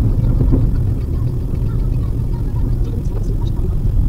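Steady low road and engine rumble inside the cabin of a Maruti Suzuki WagonR driving along a highway.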